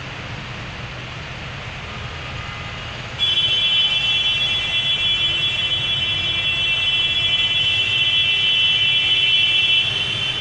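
Tractor engines rumbling. About three seconds in, a loud, steady high-pitched alarm-like tone of several pitches together starts suddenly and holds.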